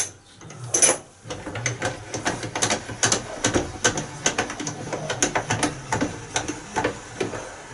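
Hand-cranked pigeon box window winder being operated, its gear mechanism giving a run of quick, uneven mechanical clicks, several a second, with two sharper clicks near the start.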